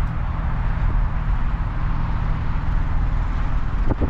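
Steady low engine and tyre rumble of a car driving slowly through a parking lot, heard from inside the cabin.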